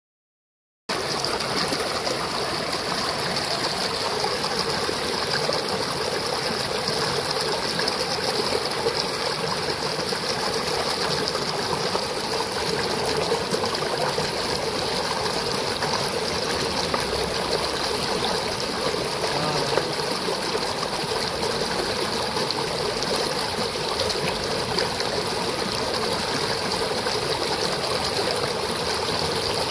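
Shallow mountain stream rushing and splashing over rocks in a steady, unbroken flow. It starts abruptly about a second in.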